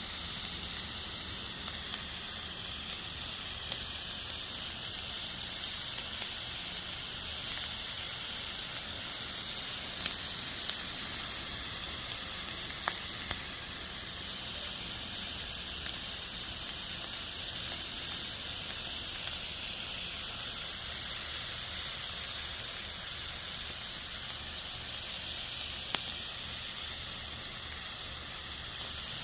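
Pork sizzling on a barbecue grill: a steady high hiss with a few sharp pops of spitting fat.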